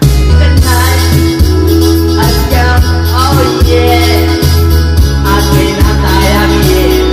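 A man singing through a microphone over loud backing music with a heavy, steady bass line and a regular beat. The backing music comes in suddenly right at the start.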